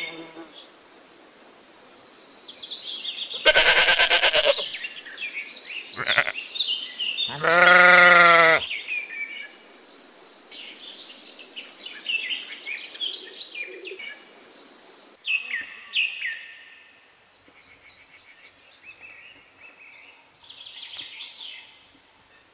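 A goat bleats twice, a quavering call about four seconds in and a longer wavering one about eight seconds in, with songbirds chirping throughout.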